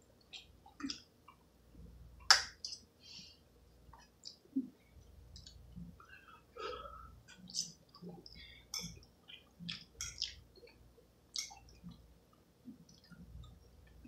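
Eating spaghetti from a metal saucepan: a fork clicking and scraping against the pot, with wet chewing and slurping of noodles close to the microphone. One sharp clink about two seconds in is the loudest sound.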